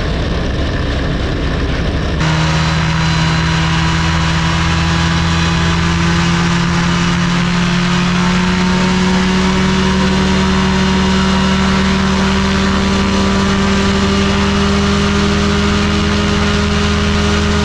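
Ultralight aircraft engine and propeller in a static ground run-up, jumping to high power about two seconds in and holding there with the pitch creeping slowly upward. It is the check of static RPM after the propeller pitch was increased, and the engine is running well, at about 6,250 rpm static.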